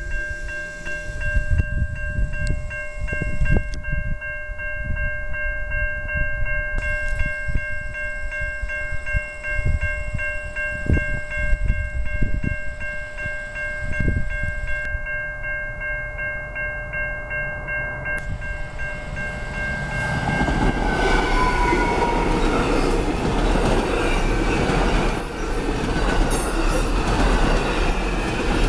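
Railroad crossing bell ringing steadily, with gusty low rumble on the microphone. Past the halfway point an MR-90 electric multiple-unit commuter train arrives and passes close by. Its wheels rumble and rattle on the rails, growing louder, with a brief falling squeal just after the train arrives.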